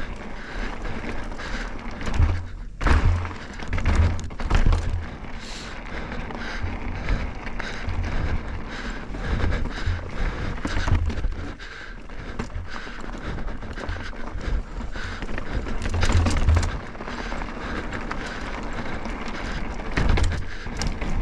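2023 Canyon Neuron 6 trail bike ridden over rocky singletrack: tyres rolling on rock, with repeated thuds from drops and ledges and a clatter of clicks and knocks from the bike.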